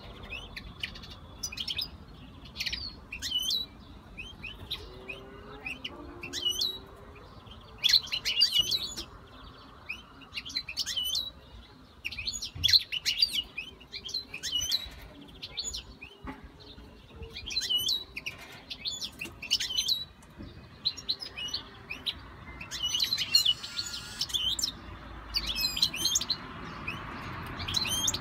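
European goldfinches chirping: clusters of short, quick, high twittering calls in bursts every second or two.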